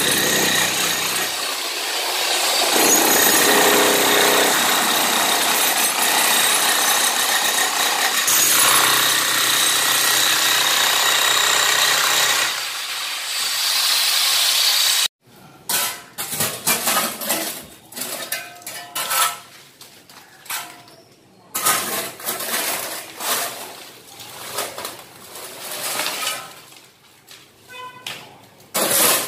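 Electric demolition hammer breaking a concrete floor, running steadily for about fifteen seconds and then cutting off abruptly. After that a steel spade scrapes and clinks irregularly as broken concrete rubble is shovelled.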